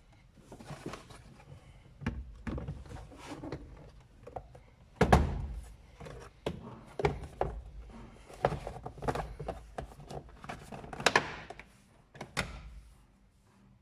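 Plastic car-interior trim being handled and refitted: a series of irregular clicks, knocks and thunks, the loudest about five seconds in and again about eleven seconds in.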